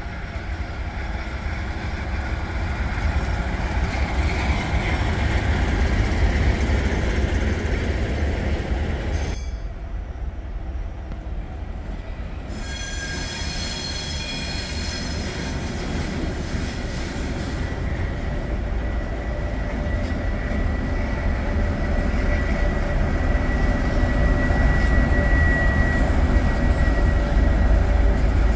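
Diesel locomotives and freight wagons moving through a station: a deep, steady rumble of engines and rolling wagons, with a sudden change about nine seconds in. In the second half a thin high wheel squeal runs under the rumble. It is loudest near the end, as an M62 (ST44) diesel locomotive with its two-stroke V12 engine passes close.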